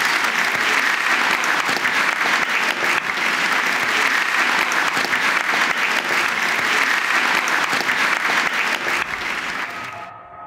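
Audience applauding, a dense, steady clapping that fades slightly and then cuts off abruptly about ten seconds in as music begins.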